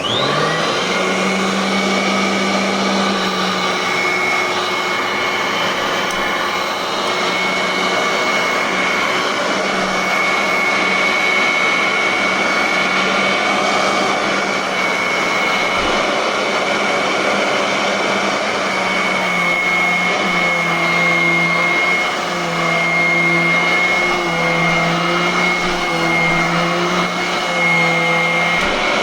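Royal Everlast upright vacuum cleaner switched on, its motor spinning up within a moment and then running steadily with a high whine over a low hum. In the last third its pitch dips and recovers about every second and a half.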